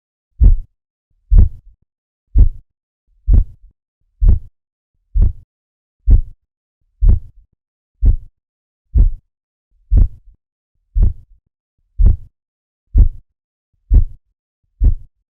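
Korotkoff sounds heard through a stethoscope during a manual blood pressure reading: a steady series of low tapping beats, about one a second, each followed by a fainter small after-beat. Each tap is blood pushing through the partly compressed arm artery as the cuff deflates, so the taps mark the span between systolic and diastolic pressure.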